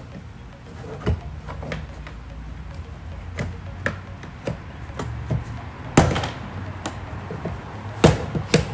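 A BMW 328i's interior door trim panel being pried off with a plastic trim tool, giving irregular sharp snaps and knocks as the panel's retaining clips let go. The loudest snap comes about six seconds in, and two more come close together near the end, with a steady low hum underneath.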